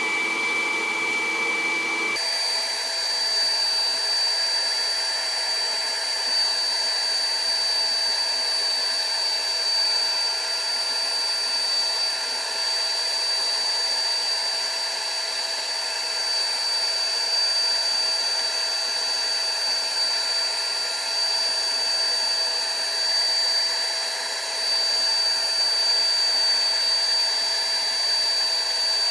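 Hot-air blower running steadily with a whistling tone, heating the Galaxy S3's front glass to soften the adhesive so the glass can be lifted off. Its tone shifts abruptly higher about two seconds in.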